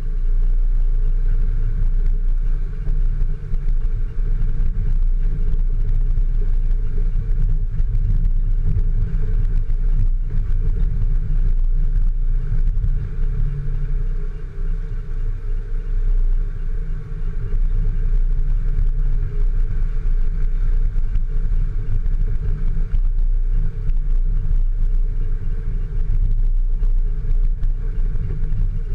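Four-wheel-drive vehicle running on an off-road trail, a loud, steady, heavy low rumble with brief dips in level a little past the middle.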